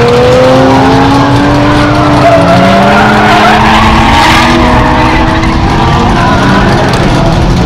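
Two drift cars sliding sideways, engines held at high revs with their notes rising and falling, and tires skidding and squealing on the asphalt.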